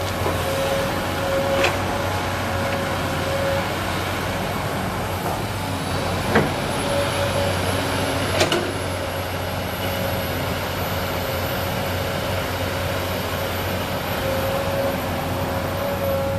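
Komatsu PC200 hydraulic excavator's diesel engine running steadily under work, with three sharp metallic knocks.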